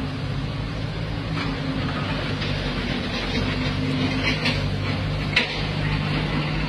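Engines of a skid-steer loader and an asphalt paver running steadily, with a few short scrapes and one sharp knock about five seconds in.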